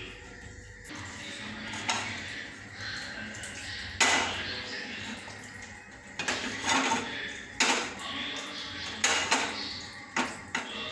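Sharp metallic clinks and clicks from an aluminium saucepan being handled on a gas stove as the burner is lit, about eight separate knocks spread over several seconds.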